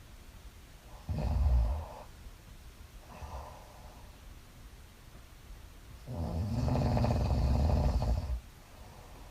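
Woman snoring in her sleep: a short snore about a second in, a faint one near three seconds, then a longer snore lasting about two seconds from six seconds in.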